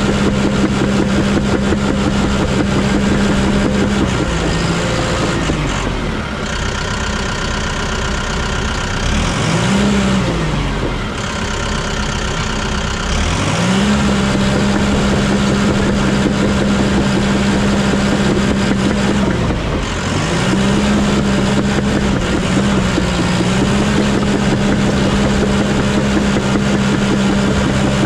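Heavy earthmoving machine's diesel engine running hard at steady high revs. Several times it sags under load and climbs back up.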